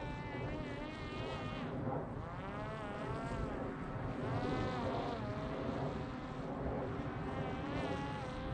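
Parrot Disco fixed-wing drone's electric pusher propeller buzzing in flight, its pitch rising and falling several times.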